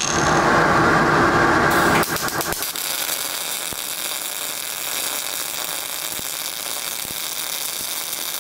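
MAG welding arc on steel from a step-switched transformer welder in short-arc mode, sputtering with heavy spatter. It is loudest for about the first two seconds, then settles into a steadier, quieter hiss with faint ticks.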